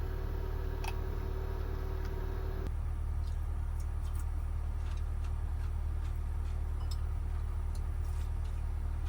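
A steady low machine hum with scattered light ticks. About two and a half seconds in, a steady mid-pitched tone drops out at an apparent cut, and the ticks grow more frequent after it.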